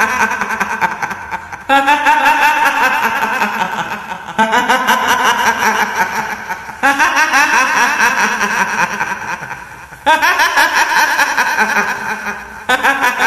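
A woman's cackling kuntilanak ghost laugh, repeated in bursts about every two to three seconds, each starting loud and tailing off.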